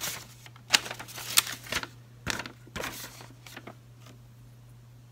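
Paper instruction leaflet being unfolded and handled: scattered crinkles and rustles that die away after about three and a half seconds.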